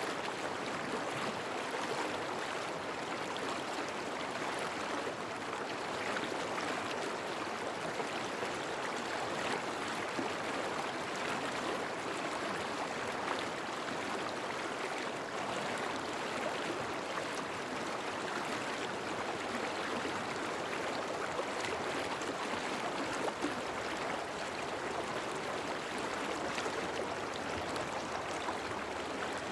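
A stream flowing along a riverbank: a steady, even rush and babble of running water.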